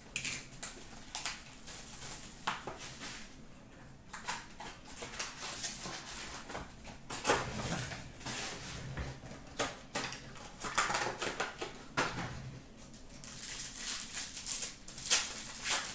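2017-18 Upper Deck SPx hockey cards and packs being handled: an irregular run of rustles, flicks and light taps as cards are pulled out, sorted and set down.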